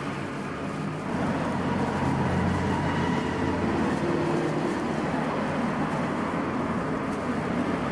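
Steady background hum and rumble of street traffic.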